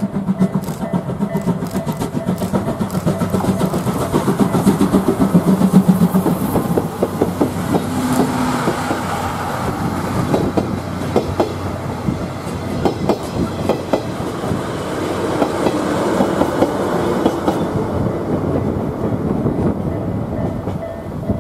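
C11 steam tank locomotive passing with a pulsing exhaust beat, followed by its coaches rolling by, their wheels clicking rapidly over the rail joints. The train noise drops away at the very end.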